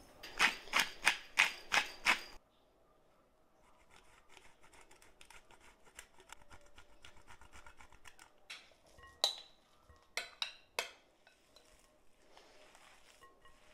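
A quick run of rhythmic scraping strokes, about three a second for two seconds, that stops abruptly. Then light clicking and a few sharp taps, the loudest about nine seconds in.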